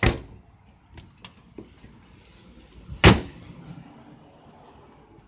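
Two hard slams about three seconds apart, the first as the 2010 GMC Yukon Denali's flip-up rear liftgate glass is pushed shut, with a few light clicks and rattles between them.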